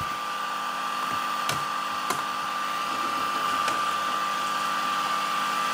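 Small electric blower running steadily: a constant rush of air with a thin high whine, and a few light clicks and knocks of a board being handled.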